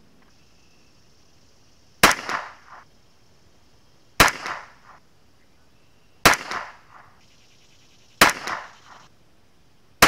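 A CZ 457 bolt-action rifle firing .22LR match rounds: five sharp shots about two seconds apart. Each shot is followed by a short echo.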